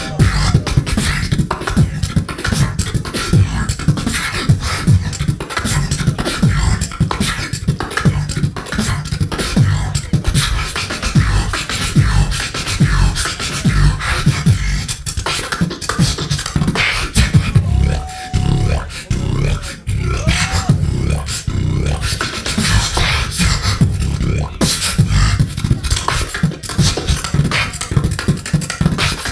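Beatboxer performing a battle round into a handheld microphone: rapid mouth-made kick, snare and hi-hat hits over a continuous deep bass. A few short pitched vocal swoops come about two-thirds of the way through.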